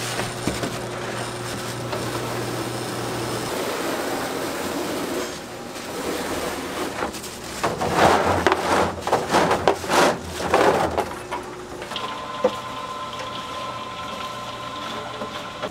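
A slab of freshly cut puffed-grain bars being tipped off a tray onto a wire rack: a run of crackling, crunching rattles in the middle, over a steady background hum.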